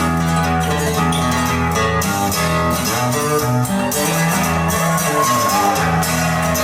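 Instrumental passage of a pop song with guitar, strings and a steady bass line, played back through a KEF bookshelf speaker.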